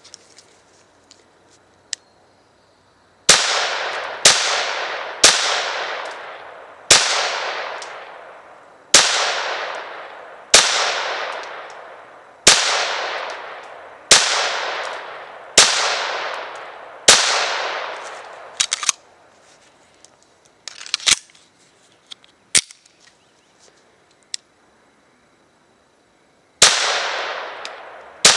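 A Ruger Mark III .22 LR semi-automatic pistol fired in slow single shots, about ten of them, roughly one every one to two seconds. Each crack trails off in a long echo. After a pause with a few light clicks, two more shots follow near the end.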